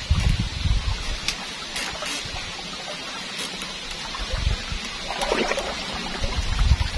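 Water trickling and lapping against a small boat, with wind buffeting the microphone near the start and end, and a few sharp clicks one to two seconds in.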